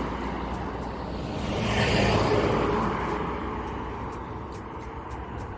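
A road vehicle passing close by, growing louder to a peak about two seconds in and then fading away.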